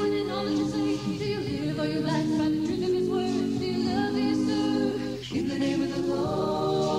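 Vocal group singing a gospel song in several-part harmony on long held notes, with a brief pause about five seconds in.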